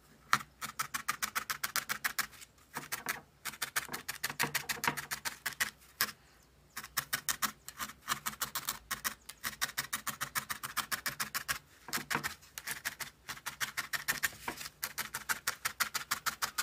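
A felting needle stabbing into loose wool on a foam felting pad: a quick, even run of crisp pokes, several a second, broken by a few short pauses. The wool layer is being tacked down and firmed.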